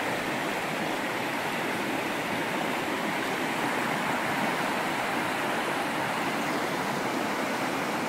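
A shallow river running fast over rapids and around boulders: a steady, even rushing of water.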